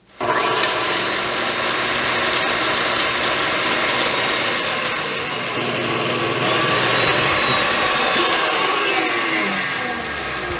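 Electric stand mixer switched on and running steadily, its wire whisk beating egg whites in a stainless steel bowl to stiff peaks.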